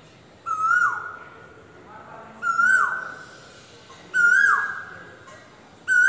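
Asian koel calling four times, about two seconds apart. Each call is a clear held note that ends in a quick downward slide.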